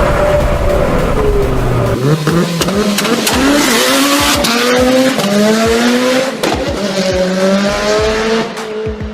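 High-performance car engine accelerating hard: its note climbs in a run of rising sweeps about a second apart, each dropping back at a gear change, with sharp cracks from the exhaust. It fades near the end.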